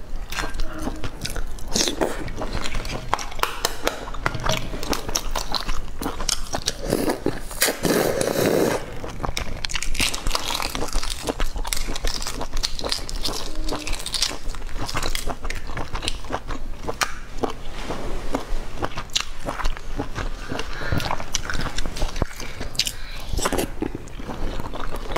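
Eggshells cracking and crackling as boiled eggs are peeled by hand, mixed with close biting and chewing; many short sharp cracks and clicks throughout, with a louder, duller mouth sound around eight seconds in.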